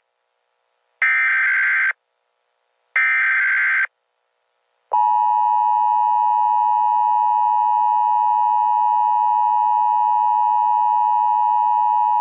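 Emergency Alert System SAME header: two digital data bursts, each about a second long and two seconds apart. About five seconds in, the steady two-tone EAS attention signal (853 and 960 Hz) begins and holds, announcing an emergency alert.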